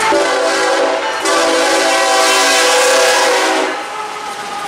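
Train horn sounding a multi-note chord in two blasts, a short one and then a longer one of about two and a half seconds, over the running noise of a passing train.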